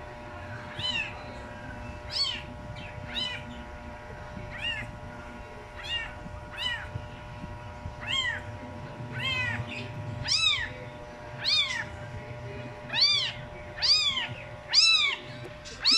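Very young kittens mewing over and over: short, high-pitched cries that rise and fall in pitch, coming more often and louder toward the end.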